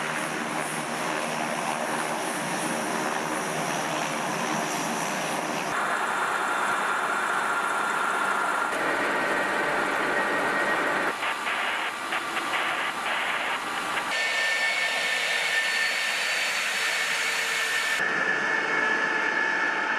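Jet aircraft engines running on an airfield flight line: a steady rush with high whines that shifts abruptly every few seconds where the footage is cut. A few short clicks come in about halfway through.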